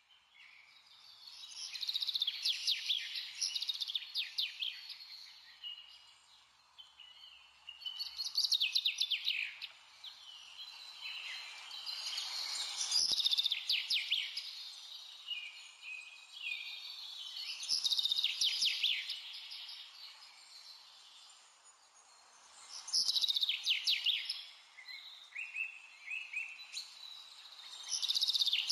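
Songbirds chirping and singing in phrases that come back about every five seconds, over a faint steady hiss.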